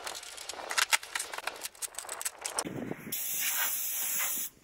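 Quick crackling and clicking as old interior trim is pulled out of a car body. About halfway in it gives way to the steady hissing rattle of a pneumatic air chisel chipping old insulation, which stops just before the end.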